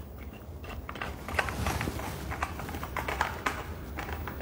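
Light clicks and knocks of a Hilti PR 30-HVS rotating laser being handled, set onto and fastened to an aluminium tripod head, scattered irregularly with small taps.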